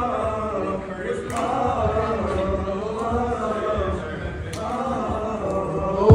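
A group of male voices chanting together in unison, led through a microphone, with two short breaks in the chant.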